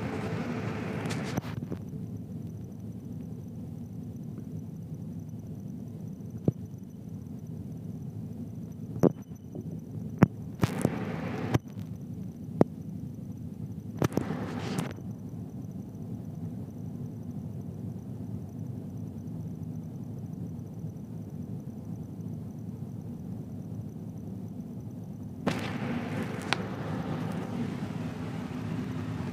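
Scattered sharp clicks and short stretches of rustling from hands handling wires and tools while speaker leads are connected to an amplifier board, over a steady low background rumble.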